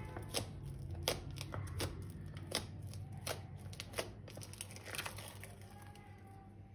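Crinkling with sharp clicks, about one a second, as the balloons and plastic piping bags used for slime-making are handled; the clicks thin out after about five seconds.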